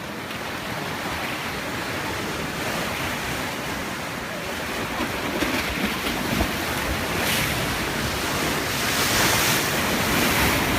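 Sea surf washing in, with wind buffeting the microphone. The surf swells louder in the second half.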